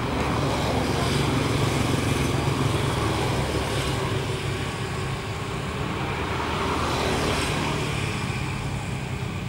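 KAI CC206 diesel-electric locomotive's diesel engine running steadily as it hauls a freight train toward the listener, a low hum that grows a little louder about a second in.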